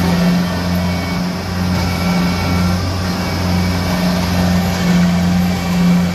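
Combine harvester's diesel engine running hard, a steady low drone that swells and dips, as the machine strains and fails to climb out of deep mud.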